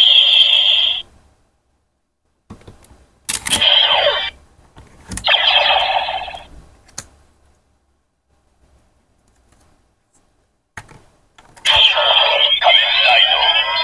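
Toy Decadriver henshin belt (a bootleg CSM replica) playing electronic sound effects through its small speaker while its buckle is worked. A loud sound cuts off about a second in, then come plastic clicks and two short electronic effects, a few seconds of near silence, another click, and a loud continuous electronic effect from near the end.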